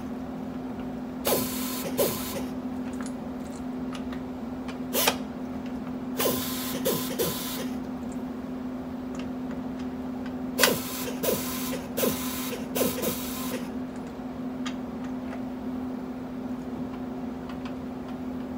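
3/4-inch drive torque gun running in about eight short bursts, the longest a little over a second, as it torques bus wheel lug nuts to 450 ft-lb.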